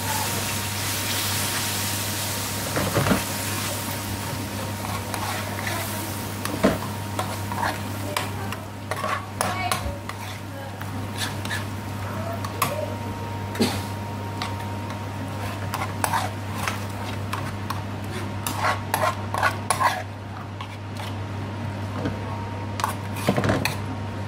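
Metal spoon stirring and scraping a thick spinach curry in a stainless steel frying pan, with repeated clinks of spoon on pan, over a soft sizzle and a steady low hum.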